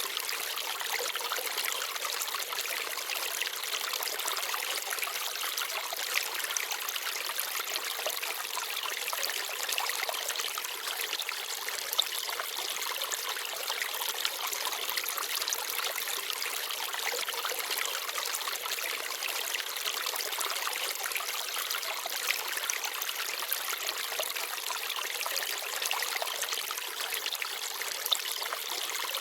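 Forest stream babbling and trickling steadily over stones, with a couple of brief, brighter splashes.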